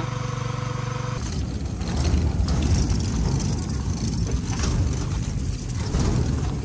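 Vehicle noise: a steady engine hum that breaks off suddenly about a second in, followed by an uneven low rumble.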